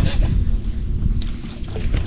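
Wind buffeting the microphone in an uneven low rumble, with a faint tick about a second in.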